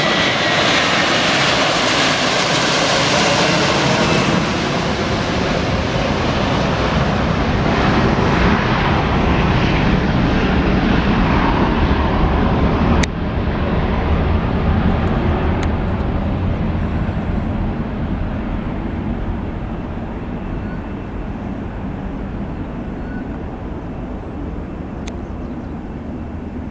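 Airliner's Rolls-Royce Trent 700 turbofans at takeoff power, a loud jet rumble with a faint whine early on. The hiss thins out and the rumble slowly fades as the aircraft moves away.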